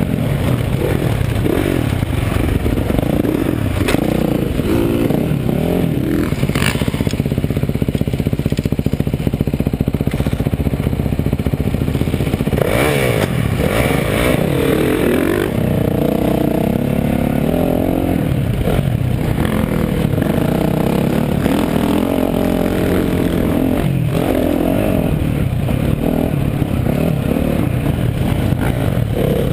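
Dirt bike engine ridden hard, heard up close from the bike itself, its revs climbing and dropping again and again as the rider accelerates and shuts off.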